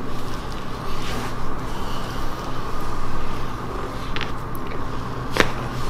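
A steady low hum, then near the end a single sharp crack as a chiropractic adjustment releases a joint on the right side of the neck.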